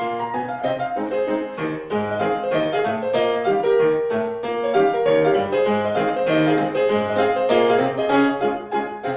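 Background music: solo piano playing a brisk run of notes.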